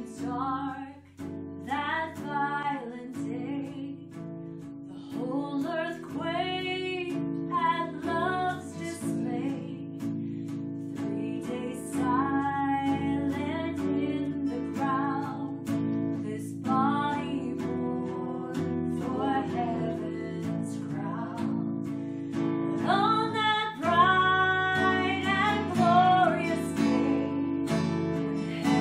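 Worship song: acoustic guitar strumming chords under a sung melody.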